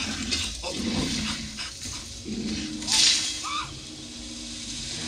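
Movie soundtrack of apes calling and grunting: short hoots and growls, with a short rush of noise about three seconds in.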